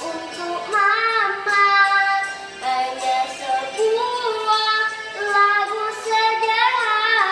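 A young girl singing a melody in held notes that swoop and bend in pitch.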